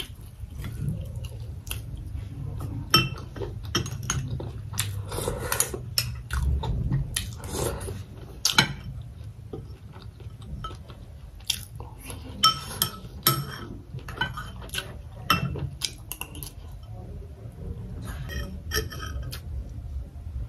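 Metal spoon clinking and scraping against a porcelain bowl, many short clinks scattered through, with chewing between them.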